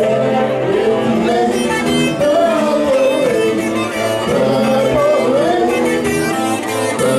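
Loud live music: an electric guitar playing with a voice singing, the melody sliding up and down in pitch without a break.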